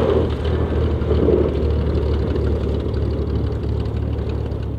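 Cessna 180's engine running at low power during the landing rollout after a three-point touchdown, a steady low drone under a noisy rush that is loudest in the first second or so and then eases off.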